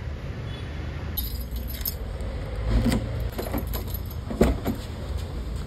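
Keys jangling with a few sharp clicks, over a low steady rumble.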